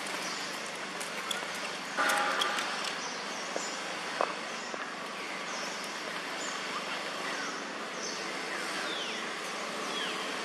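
Outdoor woodland ambience: a steady hiss with many short, falling bird chirps throughout. About two seconds in there is a brief louder pitched call with a few sharp clicks or knocks, and another knock follows a couple of seconds later.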